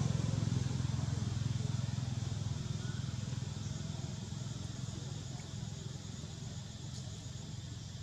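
A low engine rumble, steady in pitch, that slowly fades away over the few seconds.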